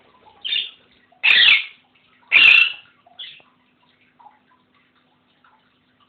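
Alexandrine parakeet giving four loud, harsh calls in quick succession, the middle two the longest and loudest, then falling quiet after about three and a half seconds.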